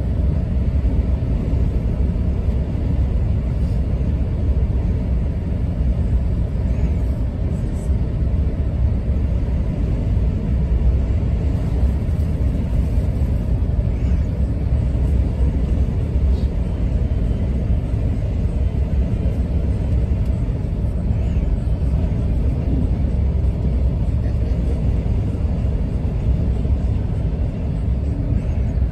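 Steady low rumble of road and engine noise heard from inside a vehicle travelling at motorway speed.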